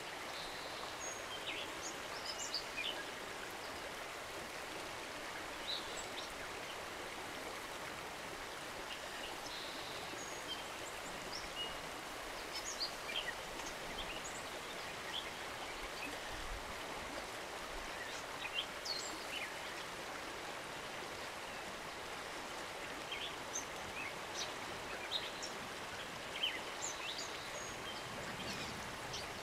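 Steady rushing of flowing river water, with short, high bird chirps scattered throughout.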